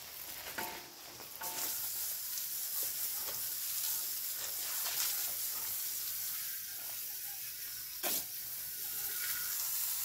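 Water from a garden hose running into a container, a steady hiss that starts about a second and a half in. A single knock sounds about eight seconds in.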